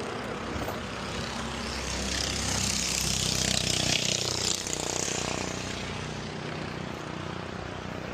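An engine running steadily in the background, with a rushing hiss that swells and fades about two to five seconds in.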